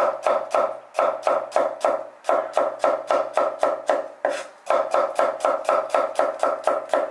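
Chinese cleaver slicing garlic cloves on a wooden cutting board: quick, even knocks of the blade on the board, about five a second, with a brief pause a little past halfway.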